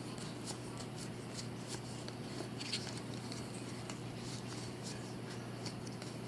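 Baseball cards being flipped through by hand: soft, irregular flicks and slides of card stock, two or three a second, over a low steady hum.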